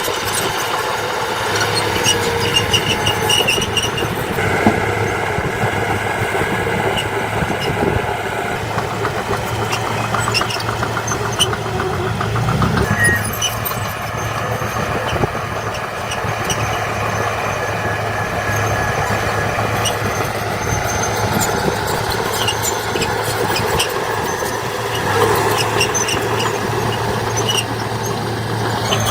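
Heavy earthmoving machinery, dump truck and bulldozer engines, running steadily at a constant hum, with brief high squeals now and then.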